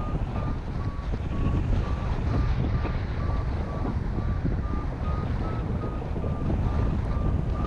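Wind rushing over the microphone of a paraglider in flight, with a variometer beeping about twice a second, its pitch dipping and rising a little: the climb tone that signals the glider is rising in lift.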